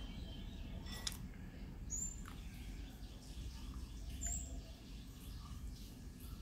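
A bird gives two short, high chirps about two seconds apart over a steady low background rumble, with a faint click about a second in.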